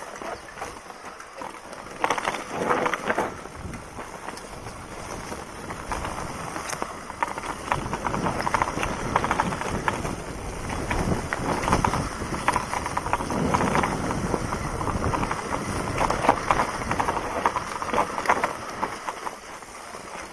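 Mountain bike riding down a rocky forest trail: tyres rolling and crunching over dirt and stones, with the bike rattling and knocking over bumps.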